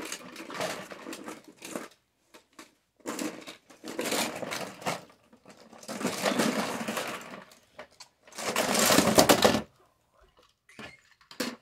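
Plastic Beyblade tops and parts clattering together as a hand rummages through a cardboard box of them, in four bursts of rattling, the last one the loudest.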